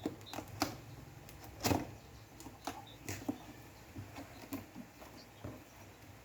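A cardboard box being opened and its packaging handled: scattered, irregular clicks, taps and rustles, the loudest about a second and a half in.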